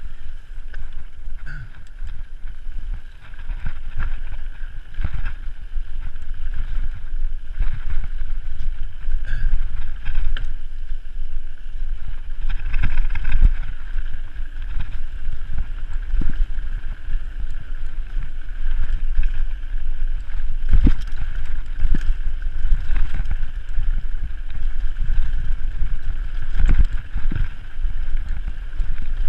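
Wind buffeting the microphone of a camera on a mountain bike descending a dirt singletrack, over a steady low rumble of knobby tyres and frequent knocks and rattles as the bike bounces over the trail.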